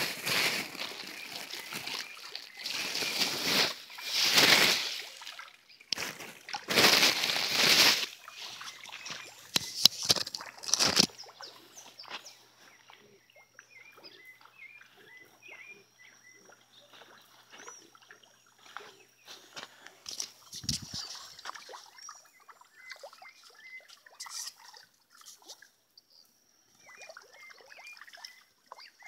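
Water splashing and sloshing in a tambaqui fish pond in loud bursts every few seconds for the first ten seconds or so. After that it goes much quieter, with faint bird chirps.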